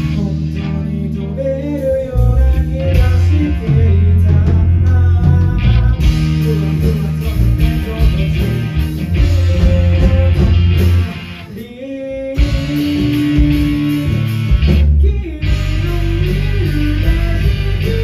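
Live rock band playing: electric guitar, bass guitar and drums with a singer. Around twelve seconds in the band briefly drops quieter, then comes back in full.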